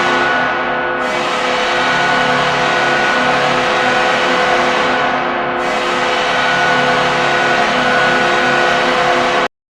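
Buffalo Sabres goal horn sounding in long held blasts with added reverb. A fresh blast starts about a second in and another just past halfway, and the horn cuts off abruptly just before the end.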